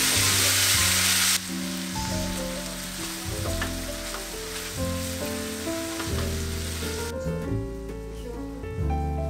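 Food sizzling loudly in hot oil in a pan, cut off abruptly after about a second and a half. Then background music with a fainter sizzle under it, which fades out about seven seconds in.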